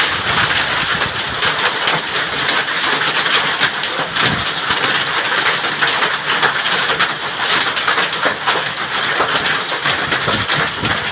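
A hailstorm: hailstones and heavy rain pelting down, a dense, steady clatter of countless small impacts over the hiss of rain.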